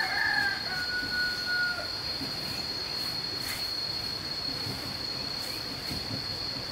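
Insects chirring in a steady, high-pitched drone. In the first two seconds a louder, whistle-like squeal is heard.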